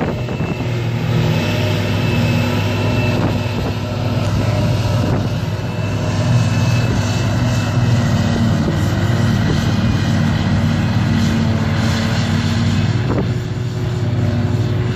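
Claas Jaguar 870 self-propelled forage harvester chopping grass from the swath under load, with the tractor pulling the silage wagon alongside: a steady, heavy diesel drone.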